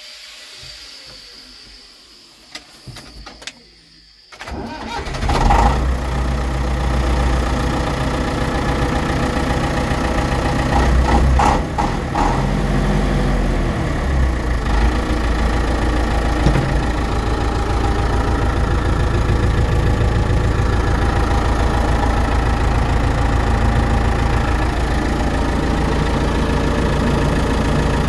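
Case 1490 tractor's four-cylinder diesel engine starting after a few light clicks. It catches about four seconds in and settles into a steady idle, with a brief rise in revs around eleven seconds in.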